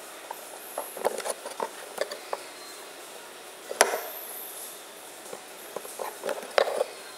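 Handling noise of a steel cleaver blade and a rubber handle wrap on a plywood bench: scattered clicks, taps and rustles, with one sharp tap about halfway and a cluster of knocks near the end.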